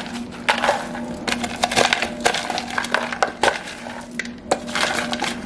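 Frozen green beans tipped into a Dutch oven of thick beef stew and stirred in: irregular crunchy clatters and clinks of the frozen pieces and the spoon against the pot.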